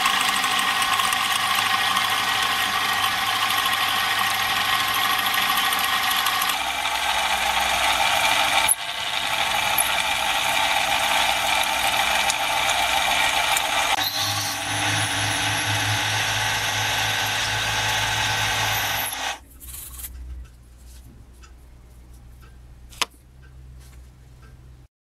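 Milling machine running, its end mill cutting a small metal connecting-rod part clamped on a rotary table: a steady machining sound with abrupt changes where the footage is cut. About 19 seconds in it gives way to a much quieter background with a few small clicks and one sharp tick.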